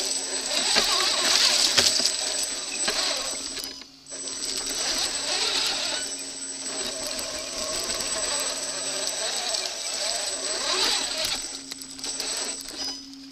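A 1/8-scale Redcat brushless RC rock crawler driving over dry leaves and rocks: motor and drivetrain running with a thin, steady high whine over the rattle and crunch of the chassis and tyres. The motor stops for a moment about four seconds in, then runs again until just before the end.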